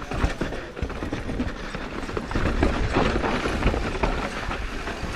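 Mountain bike clattering over a rocky dirt trail at speed, with a rapid irregular run of knocks and rattles as the wheels strike rocks, over a steady low rumble.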